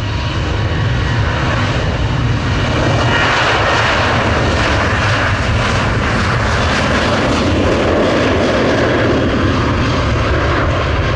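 Airliner jet engines, a steady loud rush of noise that swells about three seconds in and holds.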